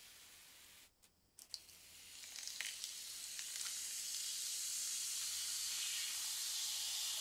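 Coca-Cola poured from a can into a plastic tub over small metal lighter parts, the cola fizzing with a steady hiss that builds up about two seconds in.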